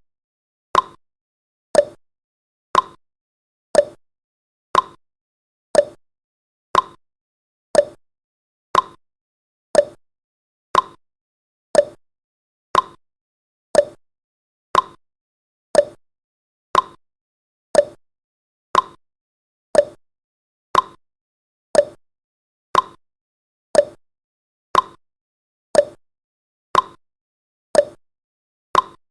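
Countdown timer tick sound effect: a short, sharp clock-like tick once a second, steady and evenly spaced, alternating between a lower and a higher tick like a tick-tock.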